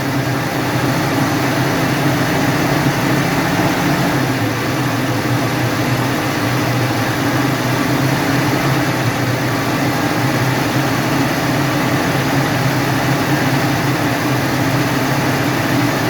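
UAZ Patriot engine running steadily at raised revs after standing about an hour and a half, held there while being listened to for a knock that the owner says shows at certain revs.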